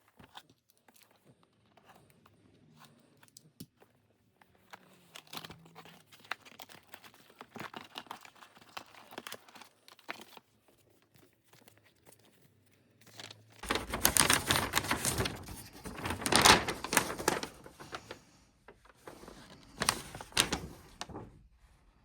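Keyboard packaging being unboxed by hand: soft taps and rustles of the cardboard box, then loud crinkling of the wrapping from a little past halfway, with two shorter bursts of crinkling near the end.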